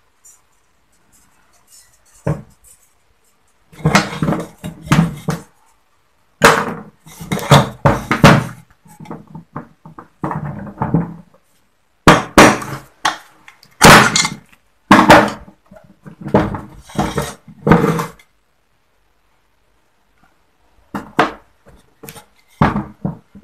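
Metal scraping and clattering of a screwdriver prying at a Yamaha Autolube two-stroke oil pump housing, in repeated short bursts. There is a single knock a couple of seconds in and a pause of a few seconds before more scraping near the end.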